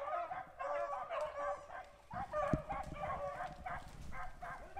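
A pack of rabbit hounds baying and yelping as they run a rabbit, many short cries overlapping. A low rumble and a single thump come in about halfway.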